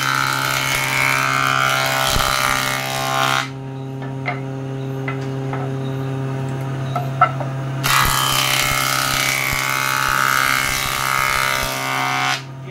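Surface planer (jointer) of a combination woodworking machine running steadily while a wooden board is fed over its cutterhead twice. Each pass is a loud rush of cutting lasting about four seconds: the first ends about three seconds in, and the second begins about eight seconds in and stops just before the end. Between the passes, the motor hums alone with a few light knocks as the board is handled.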